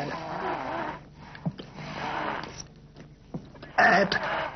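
A woman with a tracheostomy speaking in a breathy, husky voice, the words coming in short bursts of air with a louder rush of breath near the end.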